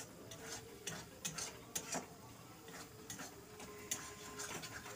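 A spatula scraping and tapping against a metal kadai while stirring a thick masala paste as it fries down, heard as scattered light clicks and short scrapes.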